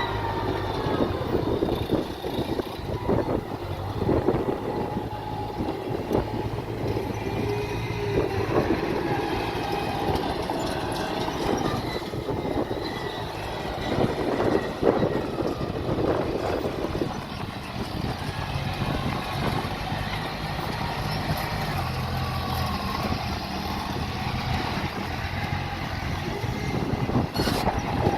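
Heavy earthmoving machinery at work: diesel engines running, their pitch stepping up and down as the engine speed changes, over a steady rumble with scattered clanks.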